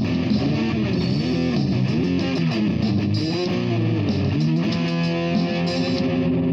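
Guitar playing a melodic line whose notes bend and slide up and down in pitch, over sustained lower notes.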